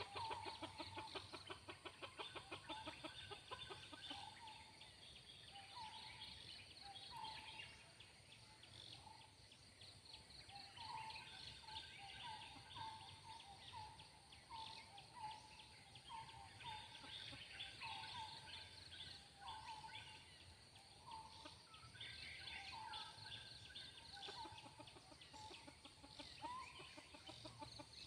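Faint junglefowl clucking: short, falling cluck notes repeated about once a second, after a rapid chattering run of notes in the first few seconds, over a steady insect buzz.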